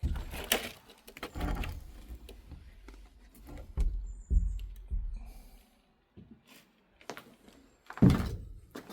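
Knocks, scrapes and creaks in several separate bursts, the sound of someone moving about and handling things: doors, boards or objects.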